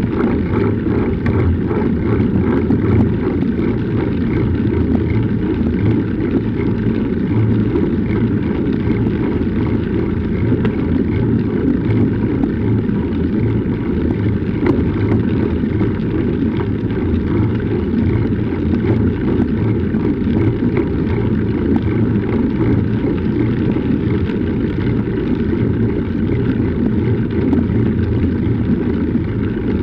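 Steady low rumble of wind buffeting a bike-mounted action camera's microphone, mixed with the rolling noise of a wide-tyred winter bike's tyres on a paved path.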